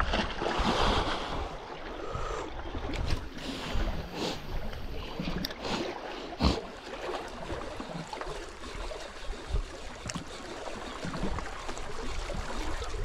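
Wind on the microphone and small sea waves lapping at a rocky shore, with a few sharp knocks, the loudest about six and a half seconds in.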